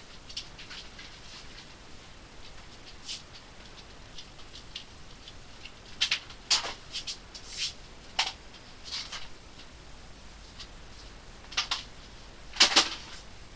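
Scattered light clicks, taps and brief rustles of someone handling things out of shot, irregular and unrhythmic, with a busier spell about halfway through and the loudest click near the end.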